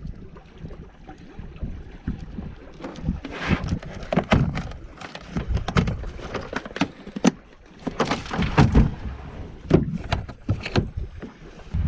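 Kayak on the water, being paddled: irregular splashes and knocks from the paddle and the hull.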